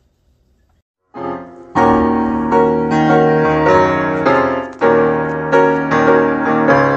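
Outro music played on piano, a run of chords struck one after another. It starts about a second in, after a moment of near silence.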